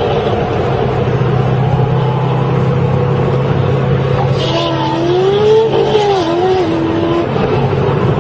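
Car engine and road noise heard from inside a moving car at highway speed, a steady drone. About halfway through, a wavering pitched sound rises over it for a few seconds.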